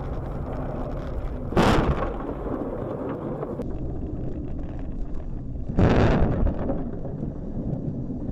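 Steady rumble of a car driving, heard from inside the cabin through a dashcam microphone. Two loud, sudden booming bursts stand out over it, about four seconds apart, each lasting about half a second.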